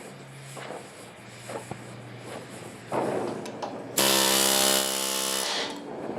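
An electric power tool starts suddenly about two thirds of the way in and runs at a steady pitch for about a second and a half, then stops. A shorter rough scraping noise comes just before it.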